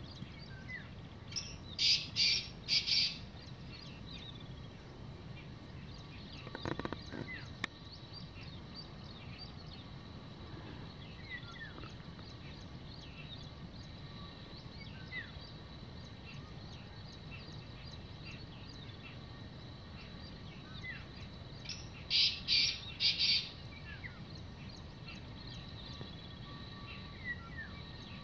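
Black francolin calling twice, each time a harsh, grating phrase of three or four quick notes, once near the start and again about twenty seconds later. Faint chirps of small birds sound between the calls.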